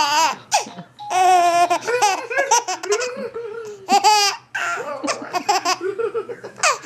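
A young baby laughing hard in repeated high-pitched bouts, breaking off briefly between them.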